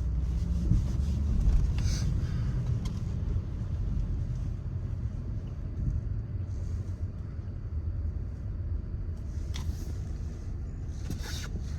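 Steady low rumble of a car driving on snowy roads, heard from inside the cabin, with a few short hissing swishes.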